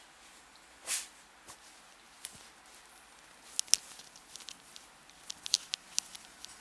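Hands at work in a head massage: scattered, irregular sharp clicks and light taps, with a soft brushing swell about a second in.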